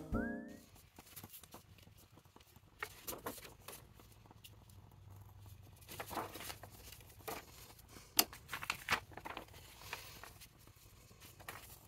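Paper and card being handled at a craft table: soft rustling of journal pages with scattered light taps and clicks as they are moved and set down.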